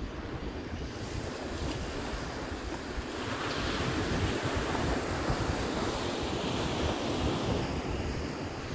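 Ocean surf breaking and washing up a sandy beach: a steady rush that swells louder about three seconds in and eases near the end, with wind buffeting the microphone.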